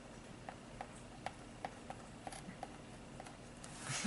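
Light, sharp clicks, about ten of them at irregular intervals a few tenths of a second apart.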